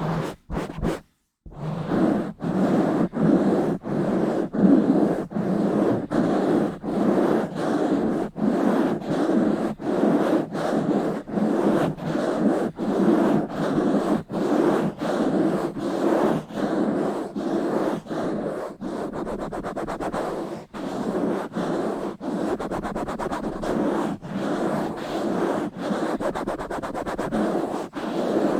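Rubbing and scratching directly on a bare microphone, in an even back-and-forth rhythm of about three strokes every two seconds. It stops briefly twice in the first second and a half, then goes on steadily.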